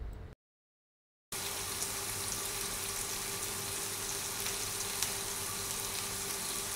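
Button mushrooms sizzling in a frying pan: a steady hiss with small crackles as the water they have released cooks off. The sound drops out for about a second near the start, then the sizzling comes back.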